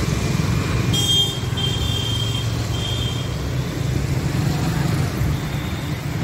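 Road traffic of motor scooters, motorcycles and auto-rickshaws passing close by, a steady low engine rumble. A high-pitched beep sounds three times in quick succession about a second in.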